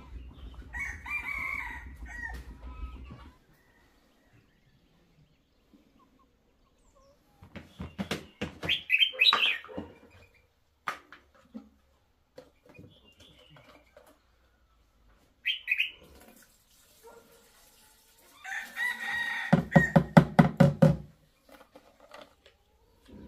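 A rooster crowing and chickens clucking, with a few short knocks in between.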